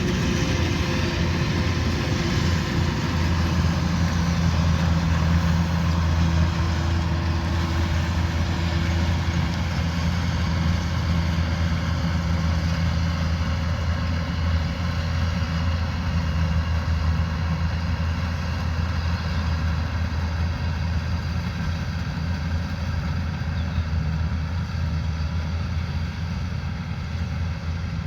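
Kubota combine harvester running steadily: a low diesel engine drone with a constant mechanical whir over it, growing slightly quieter near the end.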